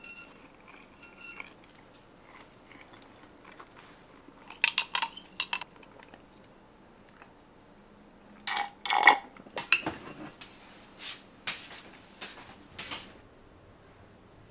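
Chopsticks clicking and scraping on ceramic plates, with a few short ringing clinks, and a glass being handled, amid small eating sounds. The clicks come in bunches, the loudest from about eight and a half seconds in.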